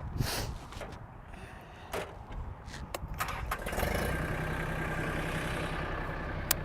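A few clicks and knocks, then about three and a half seconds in the Mahindra Max compact tractor's diesel engine starts and settles into a steady idle, with a sharp click near the end.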